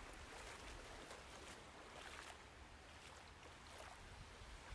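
Faint water sound effect: a steady wash of flowing water with slight swells.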